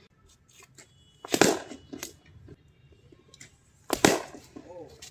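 Cricket bat striking the ball twice, sharp wooden cracks about a second and a half in and again about four seconds in, with a fainter knock shortly after the first.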